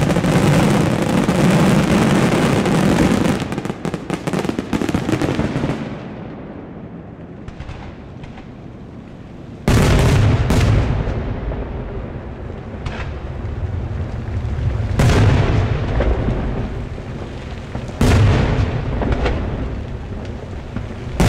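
Daylight aerial fireworks: a rapid, dense barrage of bursts for the first few seconds that dies away, then heavy single booms a few seconds apart from about ten seconds in, each trailing off in a rolling echo.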